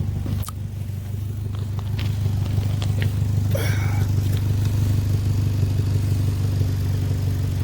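1997 Toyota Camry engine idling with a loud, sputtering exhaust note from a leaking exhaust and worn-out muffler, which a shop diagnosed as needing a new muffler and exhaust gasket. The running is steady and gets a little louder about two seconds in.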